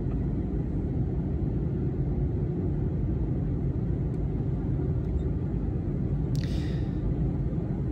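Steady low rumble of a jet airliner's engines and airflow heard inside the cabin on approach, with a brief hiss near the end.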